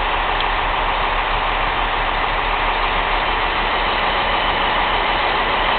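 London Midland electric multiple unit moving slowly alongside the platform as it departs, giving a steady, unchanging running noise.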